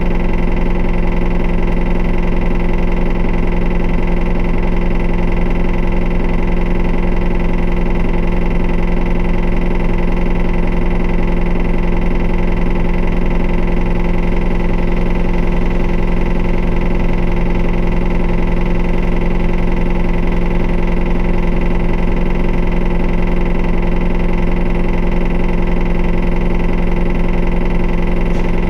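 Isuzu QDG-LV290N1 city bus diesel engine idling, heard from inside the cabin: a steady drone with several fixed tones that hold without rising or falling. The uploader notes this bus for an abnormal noise and strong vibration.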